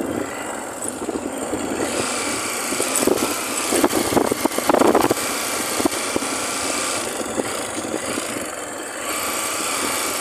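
Motorcycle engine running as it rides along a dirt and sand road, mixed with wind and road noise; a louder, clattering stretch comes about four seconds in.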